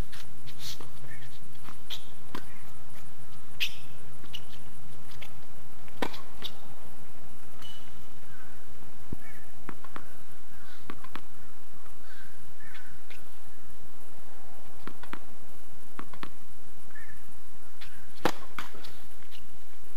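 Tennis ball bouncing on a hard court between points, a scattering of sharp single knocks, then the loudest crack near the end as the serve is struck with the racket. Short bird calls are heard faintly between the knocks.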